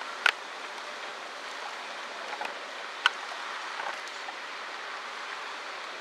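Steady outdoor background hiss, broken by two sharp clicks: one just after the start and one about three seconds in.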